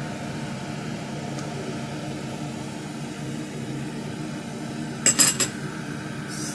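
Metal ladle clinking three or four times in quick succession against a glass cooking pot of chicken wings in sauce, about five seconds in, over a steady background hum.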